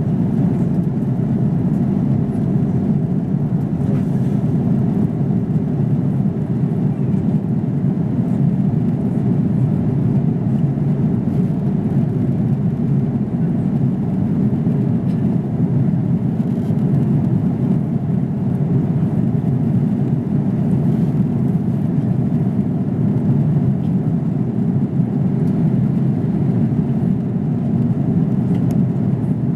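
Steady low rumble of an Airbus A330 airliner cabin in flight: engine and airflow noise heard from a window seat by the wing, unchanging throughout.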